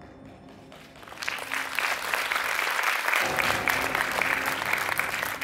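Audience clapping, starting about a second in and quickly building to steady applause, after recorded music fades out.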